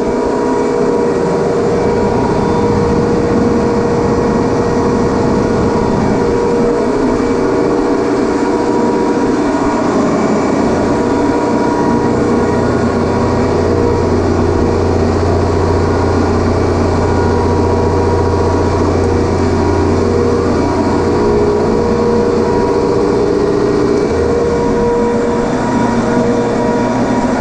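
Industrial ammonia refrigeration compressors running in a compressor room: a loud, steady mechanical drone with a few held tones. A deeper hum joins about a third of the way through and drops away near the end.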